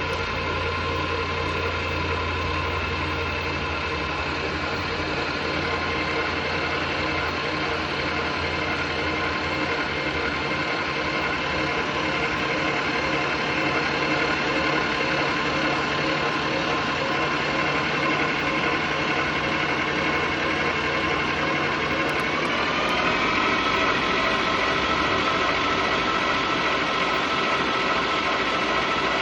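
Electric stand mixer motor and gearbox running steadily, beating brownie batter with the flat paddle attachment; its whine steps up in pitch near the end as it speeds up.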